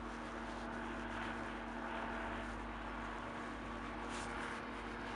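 AGC bimode railcar running on its diesel engines as it comes slowly closer: a steady engine hum.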